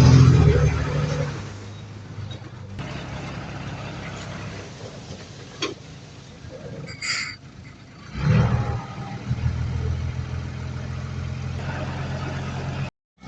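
Heavy diesel engine of earthmoving machinery running: loud at first, then easing off, and picking up again a little past eight seconds to run steadily. A brief high hiss comes about seven seconds in, and the sound cuts out for a moment just before the end.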